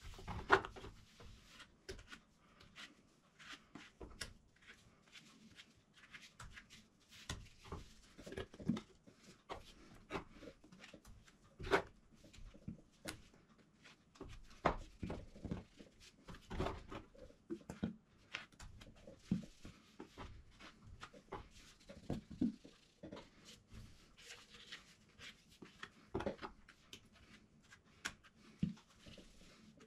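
Quiet, irregular handling sounds, scattered soft knocks and clicks, as wet skim-coat filler is scooped by hand from a metal bowl and packed into an empty silicone cartridge.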